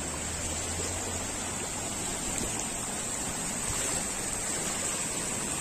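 Muddy floodwater rushing and churning in a steady rush.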